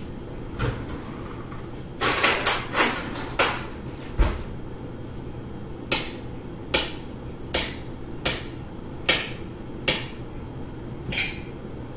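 A metal kitchen utensil chopping against a wooden cutting board: a quick cluster of knocks, then single knocks about every three-quarters of a second, and one more near the end.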